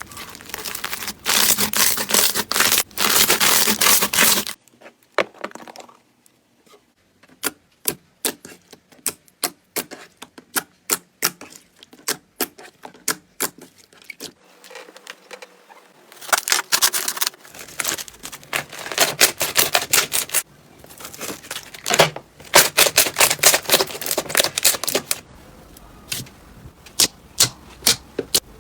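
Slime being pressed and poked by hand, making dense crackling in stretches and scattered sharp clicking pops in between, as air pockets in the slime burst.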